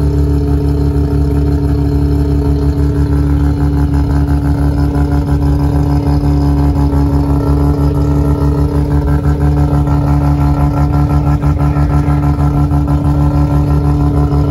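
Mazda RX-7 (FD) engine idling steadily at a constant pitch, with no revving.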